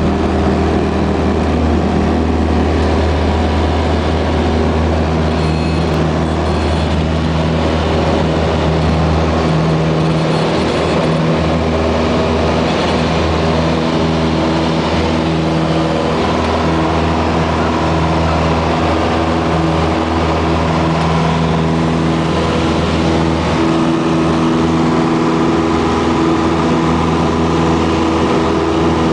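Piper Cherokee PA-28-180's four-cylinder Lycoming engine and propeller at full takeoff power, heard from inside the cabin. The engine runs steadily with a deep drone through the takeoff roll and climb-out.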